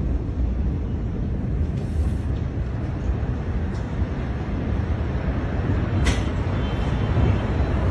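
Steady low rumbling noise on a phone's microphone, with no distinct blasts or voices, and a brief scrape about six seconds in.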